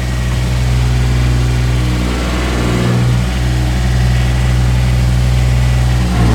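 Bucket truck's pony motor running steadily at raised speed, powering the boom hydraulics.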